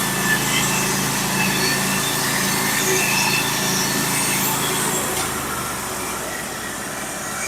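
Portable band sawmill running through a cut in white pine, its engine holding a steady note. About five seconds in the engine note changes and the sound gets a little quieter.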